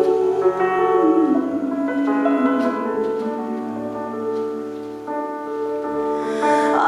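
Piano accompaniment playing held chords under a female solo singer. Her sung phrase slides down and ends about two and a half seconds in, the piano carries on alone, and she comes back in near the end.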